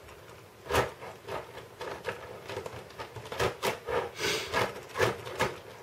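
Faces of a LEGO Technic Rubik's cube being twisted by hand: an irregular string of plastic clicks and knocks, with a brief rubbing scrape a little past four seconds in.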